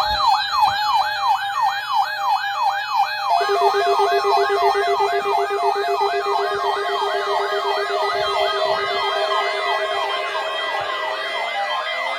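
Electronic yelp siren used as the attention signal of an Emergency Alert System alert, its pitch sweeping up and down about three times a second. A lower, rapidly pulsing buzz joins it about three and a half seconds in.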